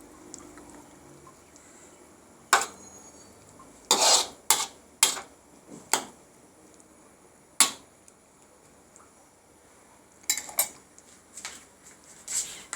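A metal cooking utensil clinking against a pot about ten times at irregular intervals while a sauce is stirred.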